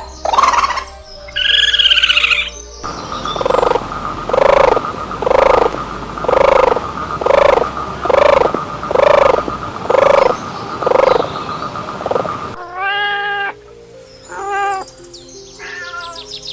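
An animal calling over and over, about ten evenly spaced calls roughly one a second, followed near the end by a few shorter, rising cat-like meows.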